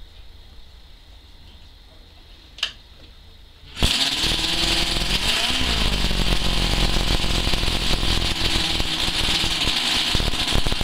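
Small hand-built model internal-combustion engine catching suddenly about four seconds in, after a single sharp click, and then running fast and steadily with a rapid, even beat.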